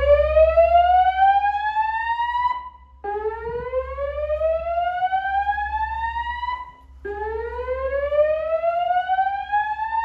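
Fire alarm speaker-strobes (System Sensor SPSR) on a Notifier NFS2-3030 voice evacuation system sounding the slow whoop evacuation tone, the signal that alternates with the recorded evacuation message. Each whoop is a tone sweeping upward for about three and a half seconds, cuts off, and starts again every four seconds.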